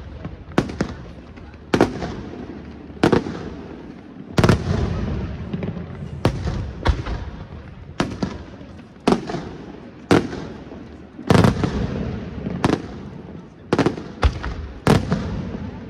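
Aerial firework shells bursting in quick succession, about one sharp bang a second, each followed by a rolling echo.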